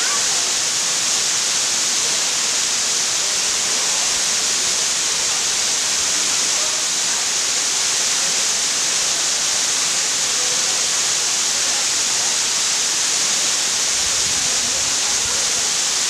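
Kaaterskill Falls pouring steadily onto rock: a constant, even rush of falling water, heaviest in its hissing upper range, with no change throughout.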